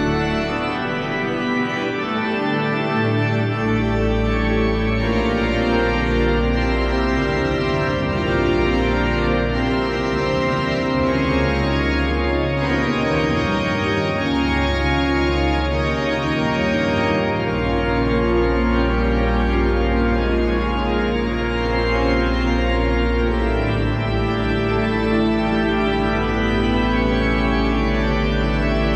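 Cathedral pipe organ playing loud, full chords over long-held deep pedal notes that change every several seconds.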